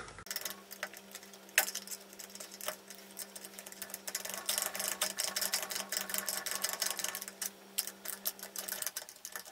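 Metal parts clicking and rattling in quick runs as hands work at the sprocket end of a Babetta moped's engine, over a steady low hum that stops near the end.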